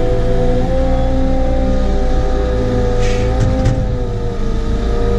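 Caterpillar 914G wheel loader's diesel engine running steadily, heard from inside the cab as the machine travels with a full bucket of snow. A brief hiss and two short knocks come about three seconds in.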